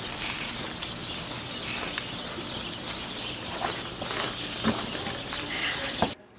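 Outdoor ambience of birds chirping over a steady hiss of background noise, with a few light ticks; it cuts off suddenly near the end.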